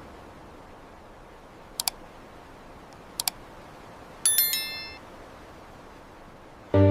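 Two quick double clicks about a second apart, then a bright bell-like ding that rings out and fades within a second, over a faint hiss.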